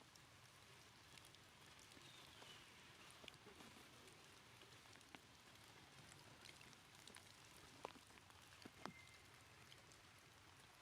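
Near silence: a faint, steady hiss with scattered soft ticks and clicks, and a brief faint high chirp about two seconds in.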